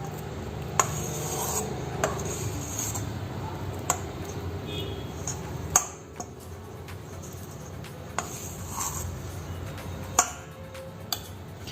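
Kitchen utensils scraping and rubbing against dough or a pan, with about six sharp clinks spread through.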